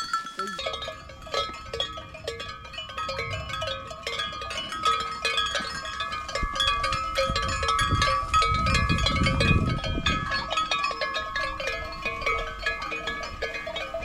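Many metal bells clanking irregularly with a ringing tone, with a low rumble swelling about eight to ten seconds in.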